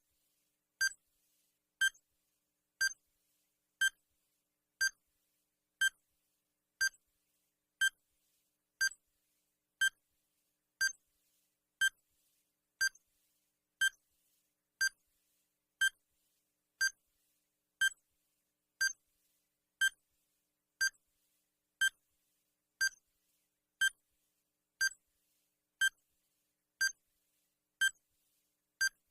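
Digital countdown timer sound effect: a short, high beep once every second, steady and evenly paced.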